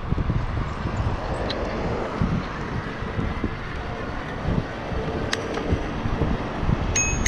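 Wind buffeting the microphone and a low road rumble while riding a 20-inch folding e-bike. Near the end a high-pitched bell starts ringing in quick repeated strikes, about three or four a second.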